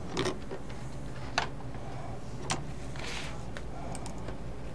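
A handful of sharp, irregularly spaced clicks of computer keys, with a brief soft rustle a little past halfway, over a low steady room hum.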